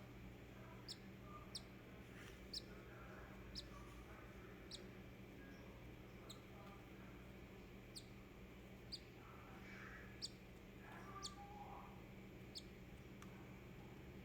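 Day-old cockatiel chick peeping: about ten short, thin, high cheeps, spaced a second or so apart, with a pause of about three seconds in the middle.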